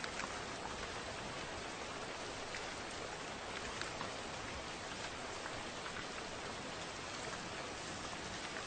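Steady rain falling, an even hiss with individual drops ticking through it.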